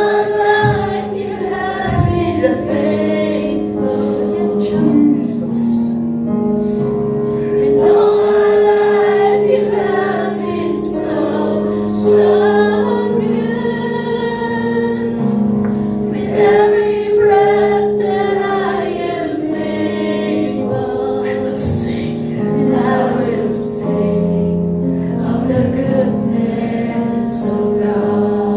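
Congregational worship singing: voices singing a slow worship song together over long held chords.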